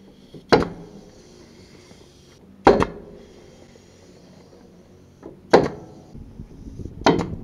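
Pneumatic nail gun firing nails through timber battens, five sharp shots a few seconds apart, the last two in quick succession.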